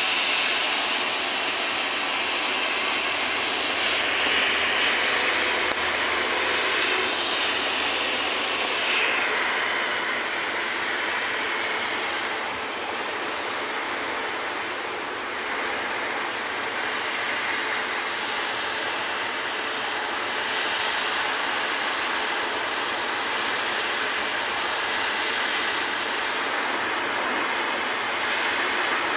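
Jet airliner's engines running with a steady, continuous jet noise as a Boeing 737 moves along the runway.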